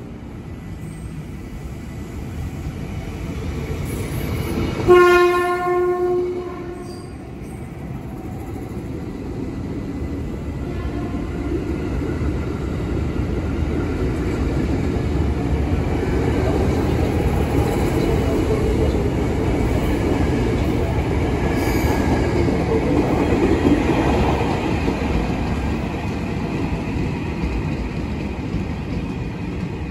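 KRL Commuter Line electric multiple-unit train giving one horn blast of about a second and a half, about five seconds in. It then pulls away and runs past with a rising rumble and wheel clatter on the rails, loudest midway through and easing off near the end.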